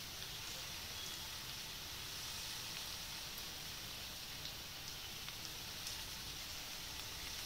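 Marinated chicken pieces deep-frying in hot oil in a steel kadai: a steady sizzle with small crackles.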